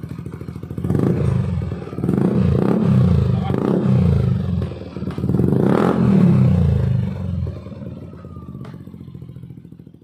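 Yamaha NMAX 2020 scooter's single-cylinder engine idling through a Yoshimura slip-on exhaust run without its silencer insert, then revved in three throttle blips about a second in, around three seconds in and around six seconds in, before settling back to idle.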